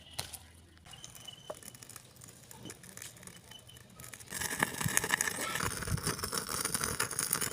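Food sizzling and crackling in hot oil in a miniature pan: faint crackles at first, then a dense, louder sizzle about four seconds in.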